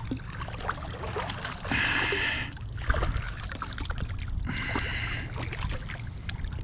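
Small knocks and rustles from handling gear aboard a kayak over a low rumble, with two short raspy buzzes, one about two seconds in and one about five seconds in.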